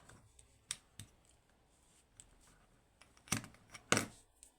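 Small metal parts being handled: a lock and its picking tools click and clack, a couple of faint clicks about a second in and two louder clacks about three and four seconds in.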